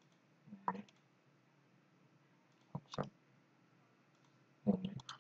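Computer mouse clicks in three short clusters: about half a second in, at about three seconds, and near the end.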